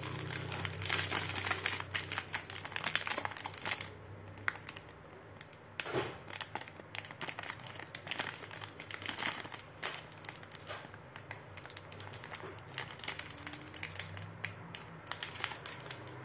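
Packaging being handled: irregular crinkling and rustling with scattered small clicks and taps, busiest in the first few seconds.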